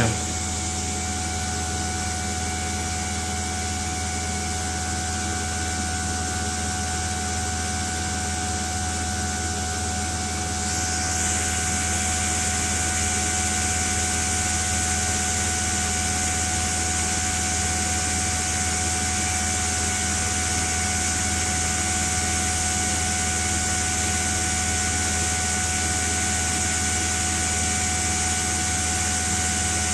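Koehler automated air release value apparatus running during its glassware-preheating stage: a steady hiss of heated compressed air flowing through the instrument over a low hum and a faint steady whine. The hiss grows a little louder about eleven seconds in.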